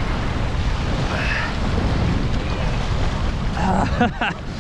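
Strong wind buffeting the microphone over small waves washing up a sandy shore, a steady rushing noise. Near the end a brief voice-like sound is heard as the fish is grabbed in the shallows.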